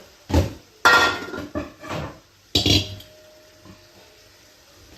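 Kitchen pots and vessels clanking as they are handled and set down: several sharp knocks in the first three seconds, one leaving a short ringing tone.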